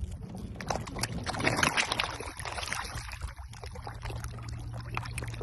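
A boat under way: water rushing and splashing against the hull over a steady low drone, the splashing strongest between about one and two and a half seconds in.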